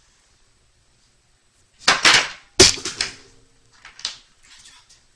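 Small plastic blind-figure capsule being twisted and snapped open: a short scrape, then one sharp plastic click with a brief ringing tone, and a couple of softer clicks after it.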